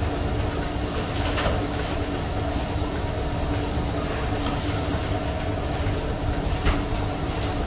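Steady machinery hum and rumble, with a few faint clicks.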